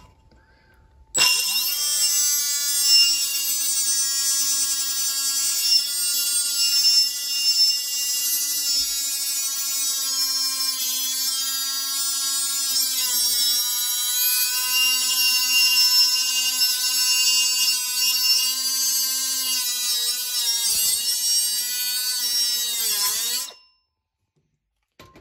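Milwaukee cordless cut-off tool's abrasive wheel whining at high speed as it cuts into stainless steel exhaust pipe. It starts about a second in, and its pitch sags several times as the wheel bites under light pressure, with the pipe slipping in the vise. It spins down and stops shortly before the end.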